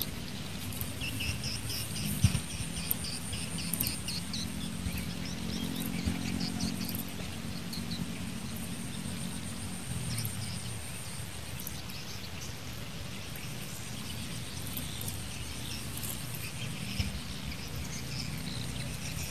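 Outdoor rural ambience: a steady high-pitched insect drone, with short bird chirps coming thick through the first half. Underneath, a low hum fades out about ten seconds in, and there is a brief soft knock about two seconds in.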